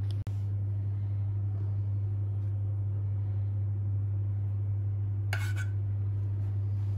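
A steady low hum runs throughout, and about five seconds in a metal spoon clinks once against the steel pot while scooping chocolate pudding.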